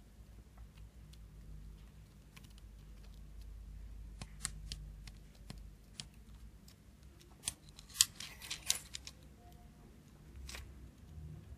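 Small sharp clicks and light metallic taps of hand tools working on a circuit board during soldering, the loudest about eight seconds in amid a short cluster of clicks. A low steady hum runs underneath.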